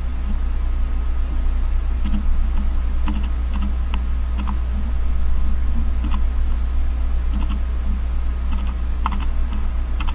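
A steady low hum with scattered light clicks, irregular and sometimes in pairs, like keys being tapped.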